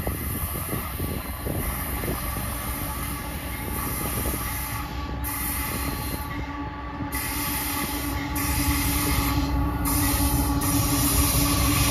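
Diesel freight locomotives approaching, their low engine rumble growing steadily louder, with a steady whining tone running underneath.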